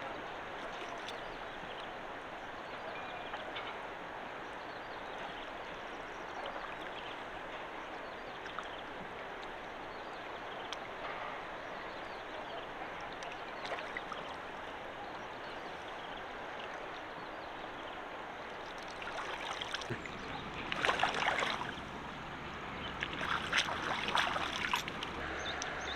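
Shallow river water flowing with a steady rushing hiss. Near the end come two louder, rougher stretches with sharp clicks, as of water being disturbed.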